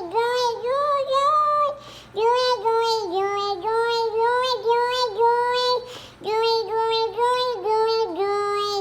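A high-pitched voice saying 'girl' over and over without moving the lips, so it comes out as a singing, warbling tone that dips and rises about three times a second. It goes in three runs with short breaks near two seconds and six seconds in.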